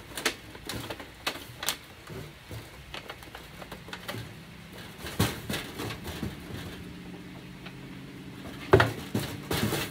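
Thin aluminum sheet pans crinkling and tapping as they are pressed and shaped against a wire tomato cage: a scatter of light clicks and knocks, with one sharper knock near the end.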